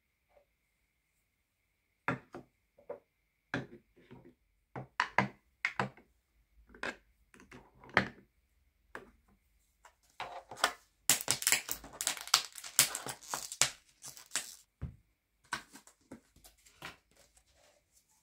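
Makeup items set down and slotted into a bamboo organizer on a desk: a run of light clicks and taps of plastic tubes and brushes on wood. About ten seconds in comes a few seconds of crinkling wrapping.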